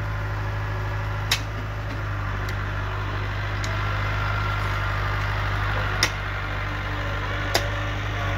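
An engine running steadily at idle, with a few sharp clinks of steel shovels striking soil and stones.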